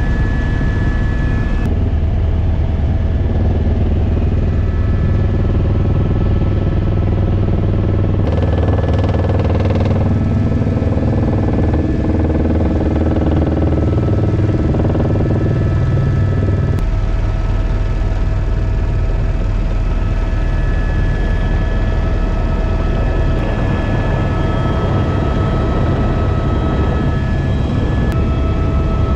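Helicopter's turbine engine and rotor heard from inside the cabin as it comes in low to land: a loud, steady drone with a constant high whine over it, changing abruptly in tone a few times.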